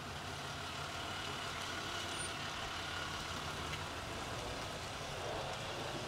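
Pickup truck engine running steadily as it drives off, towing a trailer loaded with logs.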